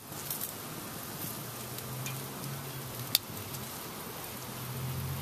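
Stuffed jalapeño poppers sizzling on a hot kamado grill grate over charcoal, a steady hiss. A single sharp click of metal tongs against the grate comes about three seconds in.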